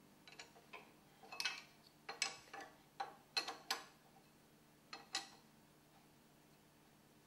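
Metal-on-metal clicks and taps of a long hex key being fitted into and turned in the socket screws of a Grundfos CR pump's shaft coupling, about a dozen irregular clicks in the first five seconds, then they stop.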